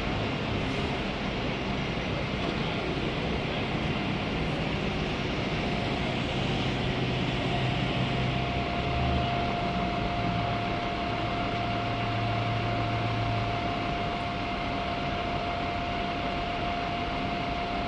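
Steady engine noise from idling vehicles and street traffic, with a low hum. A thin steady whine comes in about six seconds in and holds, and the low hum drops away near the end.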